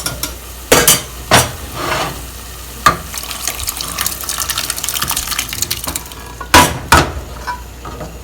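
A spoon stirring a pan of dal makhani gravy, knocking sharply against the pan several times, with a hissing stretch of liquid sound in the middle.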